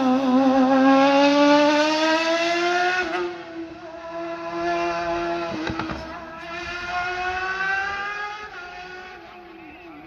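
Hill-climb race car's engine at high revs accelerating hard, its note climbing and dropping back at each upshift, about three seconds in and twice more, and fading as the car pulls away.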